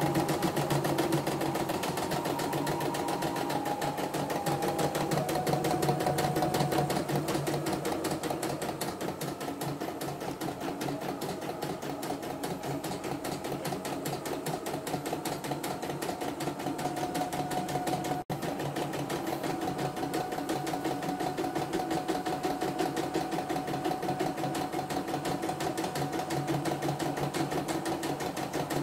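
CNY E960 computerized embroidery machine stitching a design: a fast, steady run of needle strokes over the hum of its motor, the pitch dipping slightly a few seconds in.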